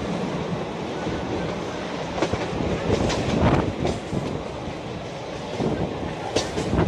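Mumbai suburban electric local train (EMU) running, a steady rumble with a few sharp wheel clacks scattered through.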